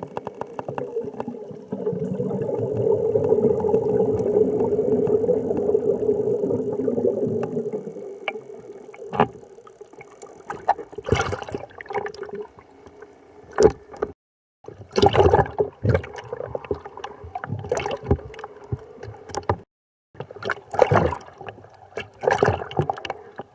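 Water gurgling and bubbling in irregular bursts, after a steady rushing water noise that fades out about eight seconds in.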